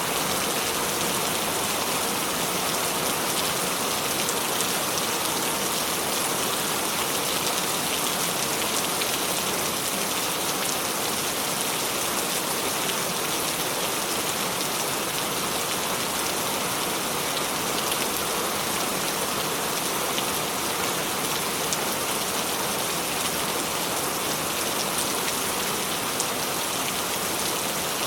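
Steady rain falling, a dense, even patter of drops that does not rise or fall.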